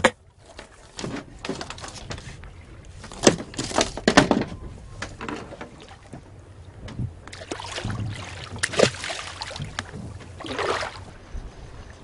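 Sea water sloshing against the hull of a small boat, with a few sharp knocks from handling on board.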